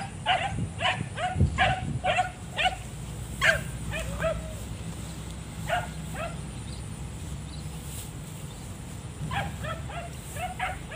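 Hunting dog barking in quick runs of short, high yelping barks, about seven in the first three seconds, a few scattered barks after, then another run near the end.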